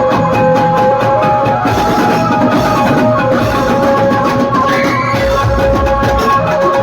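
Loud festival music over a DJ sound system: drums under long held melody notes, with heavier bass beats in the second half.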